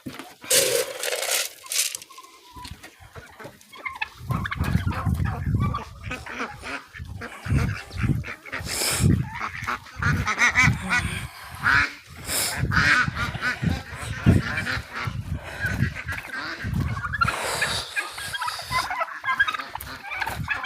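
Waterfowl in the poultry yard honking and calling on and off. Irregular low bumps and rustles sound underneath.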